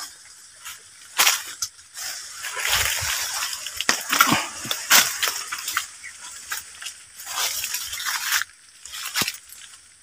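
Leaves and twigs of a tree rustling and crackling in irregular surges as someone climbs and pushes through the foliage, with a few sharp snaps along the way.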